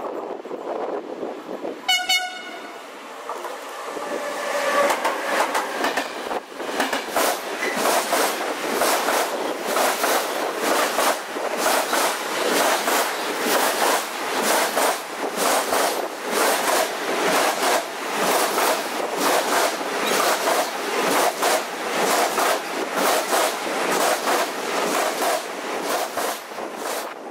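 Train horn blast about two seconds in as an electric locomotive approaches. A rolling-highway freight train, lorries carried on low wagons, then passes close by, its wheels clattering in a steady rhythm that lasts until near the end.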